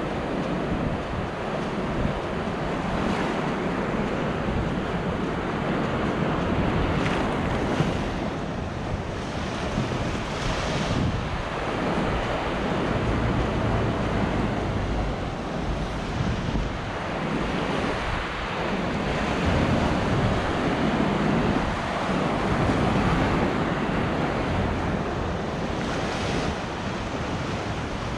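Sea surf breaking and washing up a beach in continuous rising and falling swells, with wind buffeting the microphone.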